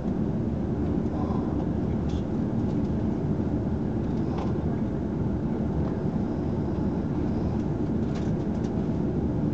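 Passenger train running at speed, heard from inside the carriage: a steady low rumble of wheels and running gear on the rails, with a few faint, brief high clicks.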